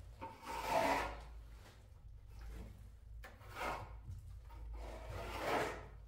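Three slow scraping strokes, each about a second long and a couple of seconds apart, the one near the start the loudest.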